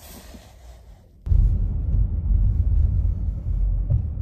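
Car driving, heard from inside the cabin: a steady low rumble of road and engine noise that starts abruptly about a second in, after a quiet moment.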